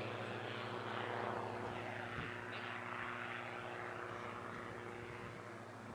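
Propeller aircraft's engine droning steadily, slowly getting fainter.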